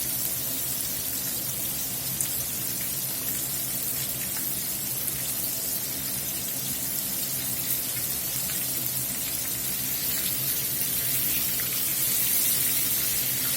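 Breaded chicken thighs deep-frying in about an inch of hot canola oil in a skillet: a steady, even sizzle, with a faint low hum underneath.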